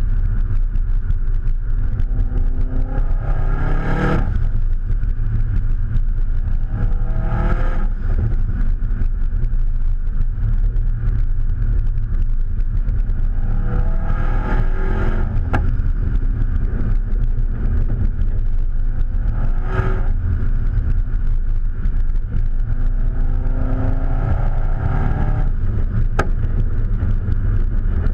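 Subaru Impreza WRX STI's turbocharged flat-four under way over a steady low rumble, rising in pitch on five pulls through the gears, each ending in a short burst of noise. Two sharp cracks, about halfway and near the end, are small exhaust backfires.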